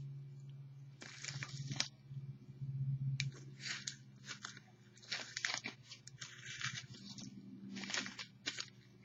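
Plastic cling wrap wound thickly around a bundle of newspapers crinkling and crackling as it is handled, in a string of irregular short bursts. A steady low hum sits underneath.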